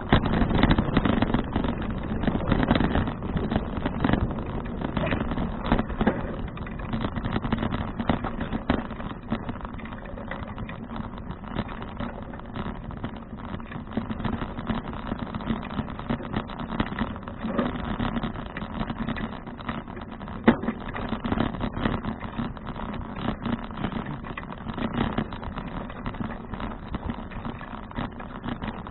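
Riding noise on a bicycle-mounted action camera: wind rushing over the microphone and tyre and road rumble, with frequent small rattles from the bike. There is a sharp knock about two-thirds of the way through. The noise is loudest in the first few seconds.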